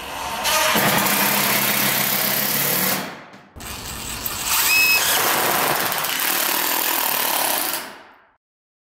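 DeWalt cordless impact driver driving fasteners through a metal Z-bar into a steel standing seam roof panel, in two long runs: one for about three seconds, then a short pause and a second run of about four and a half seconds.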